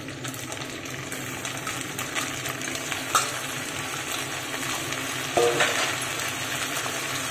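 Raw country chicken pieces sizzling in hot sesame oil and sautéed onion in a steel pressure cooker as they are added and moved about, a steady frying hiss. There is a sharp knock about three seconds in and a brief pitched sound a little past five seconds.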